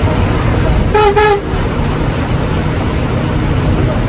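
Steady engine and road rumble of a moving bus heard from inside the cabin, with a vehicle horn giving two short toots about a second in.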